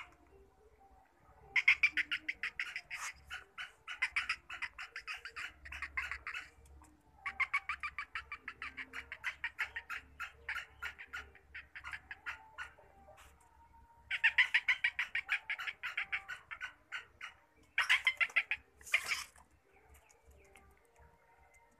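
Black francolin (black partridge) giving long runs of rapid, sharp chattering notes, about eight a second, in four bouts of a few seconds each. A short noisy burst comes near the end.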